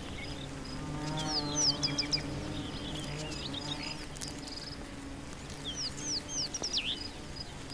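Soft background music with sustained low notes, over bird chirps: two quick runs of high, downward-sweeping chirps, about a second in and again near the end.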